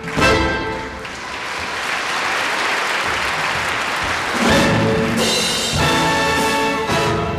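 A phrase of dance music ends on a sharp final hit, and audience applause follows for about four seconds. About four and a half seconds in, orchestral music with brass starts up again.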